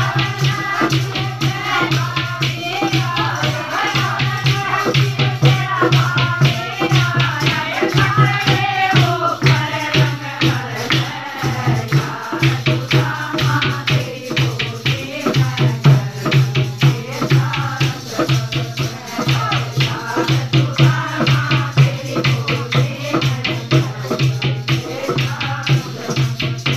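Group of women singing a folk song to a fast, even beat of clapping and rattling percussion.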